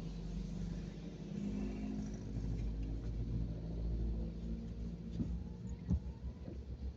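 Car engine idling with a low, steady rumble, heard from inside the cabin while stopped in traffic. There are two short knocks about five and six seconds in.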